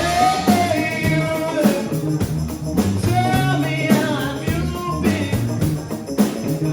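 Rock band playing: a steady drum beat and bass line, with a sung or horn-like melody gliding over them.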